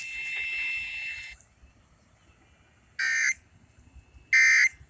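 Emergency Alert System end-of-message data bursts over broadcast radio: two short, harsh, buzzing digital bursts about a second and a third apart, starting about three seconds in, the second one louder. They are the coded signal that closes an EAS test. Before them comes about a second of hiss.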